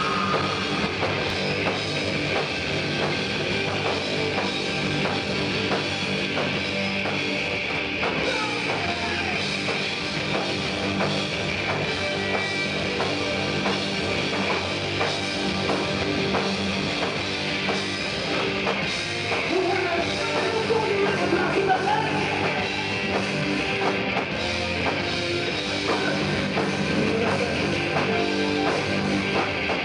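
Live rock band playing loud and steady: electric guitars, bass guitar and drum kit.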